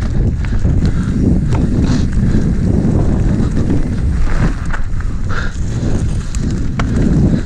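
Mountain bike riding fast down a dirt forest trail: a steady rumble of wind on the action camera's microphone and tyres on the ground, with scattered sharp clicks and knocks as the bike rattles over roots and bumps.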